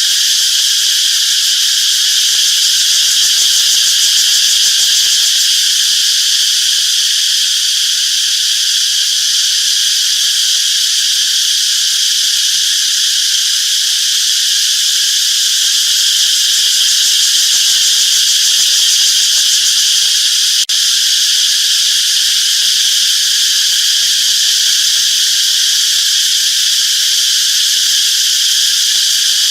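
Loud, steady chorus of singing insects, a continuous high buzz with no pauses. It cuts out for an instant about 20 seconds in.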